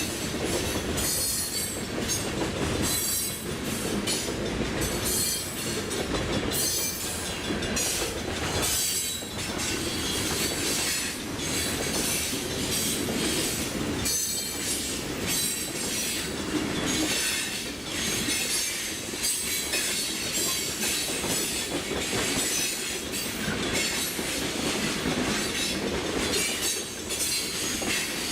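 Freight train cars rolling past, their steel wheels clicking and clattering over the rail joints with some high-pitched wheel squeal.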